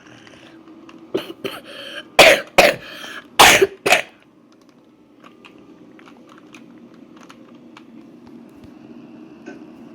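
A person coughing hard, about four loud coughs in quick succession with some throat clearing around them, followed by a low steady hum.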